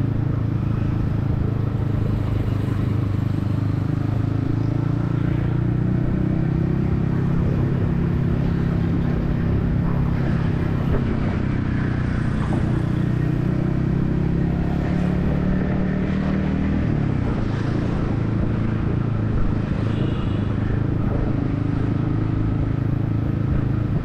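Yamaha XSR155 single-cylinder engine running under way through a DIY exhaust, its note drifting up and down with the throttle and changing pitch about two-thirds of the way through, over road and traffic noise.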